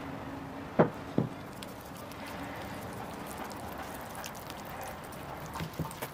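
Silicone spatula stirring flour in a bamboo wooden bowl: a soft, steady scraping rustle. Two sharp knocks come about a second in, and a few lighter taps come near the end.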